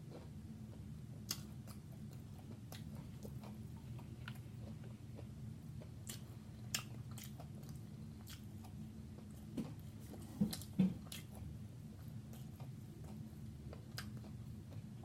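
Close-miked chewing of food, with wet mouth clicks and smacks scattered through, over a low steady hum. Two louder sounds come close together about ten and a half seconds in.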